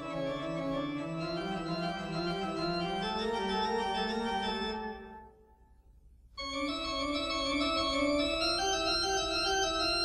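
Organ music playing slow, held chords, breaking off into near silence about five seconds in and resuming about a second later.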